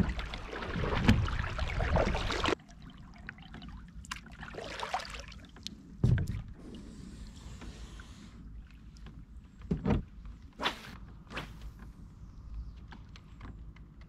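Kayak paddle strokes splashing and dripping for the first two and a half seconds, then a few sharp knocks and clunks of paddle and gear against the plastic kayak hull.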